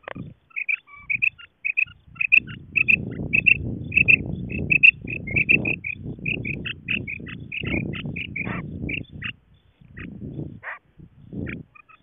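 Female common quail calling: quick series of short, high notes, often in twos and threes, over a low noisy rumble. The calls thin out near the end.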